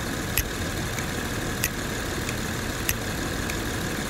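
Honda J-series V6 idling steadily, with a sharp click about every second and a quarter, each followed by a fainter click: a bench-tested EGR valve snapping open and shut as 12 V from the battery is touched on and off its connector.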